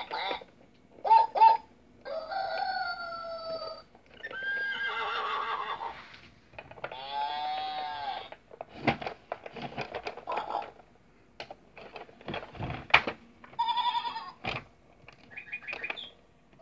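Electronic musical toy farm house playing short recorded farm-animal calls one after another as its buttons are pressed, with plastic clicks and knocks from the buttons in between.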